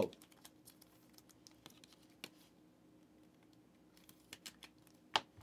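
Faint quick clicks and taps of trading cards being handled and set down: a flurry in the first couple of seconds, a few more about four seconds in, and one sharper click near the end.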